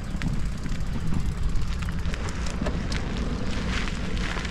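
Bicycle riding on a concrete road: a steady rumble of tyre and wind noise, with scattered light clicks and rattles.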